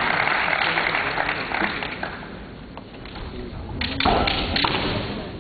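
Kendo exchange: bamboo shinai clacking against each other and against armour, with a stamp on the wooden floor, in a quick cluster of sharp knocks and thuds about four seconds in, among the players' shouted kiai.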